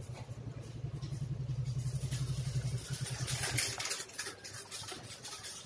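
A small engine running with a fast, even low throb, which stops nearly four seconds in. Just before it stops, a short clatter as a multimeter is lifted and moved on the workbench.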